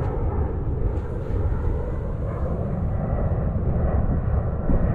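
Wind buffeting the camera microphone: a steady, gusty low rumble.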